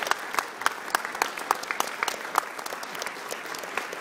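A room full of people applauding, a dense patter of clapping with single claps close by standing out loud and sharp.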